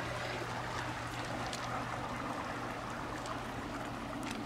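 Steady trickle of running water from a backyard pond, with a low steady hum underneath and a few faint clicks.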